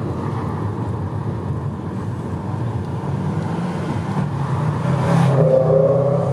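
Steady engine and road rumble heard from inside a moving car, with oncoming traffic going past. About five seconds in, it swells as a vehicle with a droning engine passes close by.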